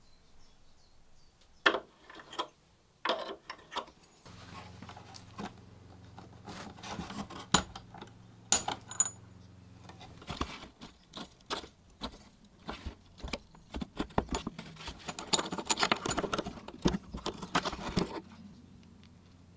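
Old brass drawer ring pull being worked off a wooden drawer front. Its loose ring and stamped backplate clink against each other and the wood in scattered sharp clicks. A thin metal tool then scrapes and pries under the backplate in a dense run of scraping and clicking that stops a second or so before the end.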